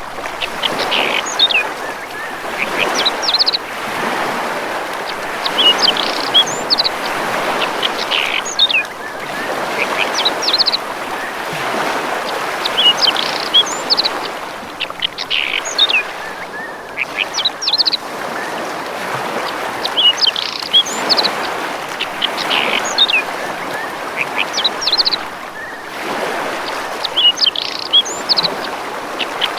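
Birds chirping in short high bursts that recur every few seconds, over continuous rushing water that swells and eases.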